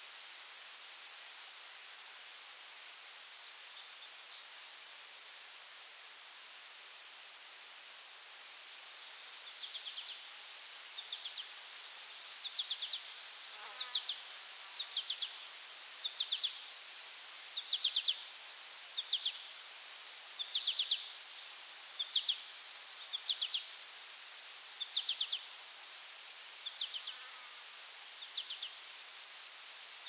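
Forest insect chorus: a steady high-pitched buzzing trill over faint, evenly repeated pulses. From about a third of the way in, a louder short raspy chirp comes again roughly every second and a half.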